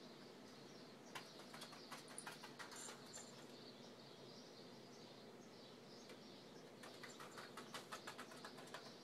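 Small bells inside a plastic jingle ball rattling and tinkling as a green-cheeked conure plays with it. The sound comes in two faint spells of quick clicks, about a second in and again near the end, over a steady low room hum.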